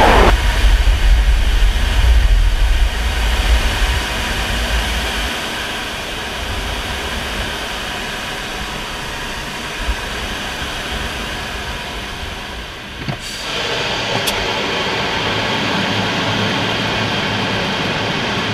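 MiG-29 jet fighter in flight: its twin turbofan engines and rushing air make a steady, loud noise. A heavy low rumble fills the first few seconds, then eases to a lighter, even noise, with a short dip about thirteen seconds in.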